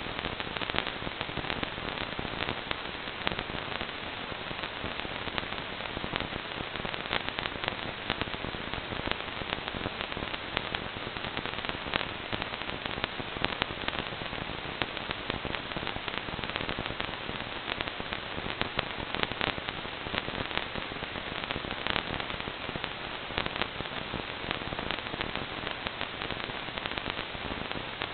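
Steady static hiss with frequent random crackles from an analog FPV video receiver's audio channel, picking up no signal.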